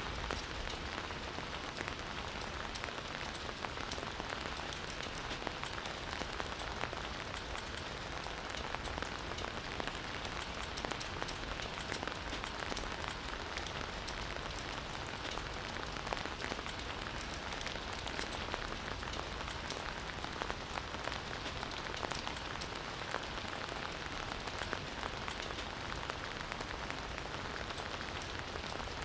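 Campfire burning, with steady dense crackling: many small sharp pops over a continuous hiss.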